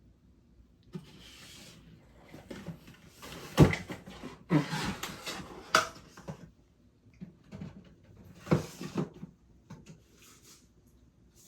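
Household handling noises: several bursts of rustling and clattering, with a sharp knock about three and a half seconds in.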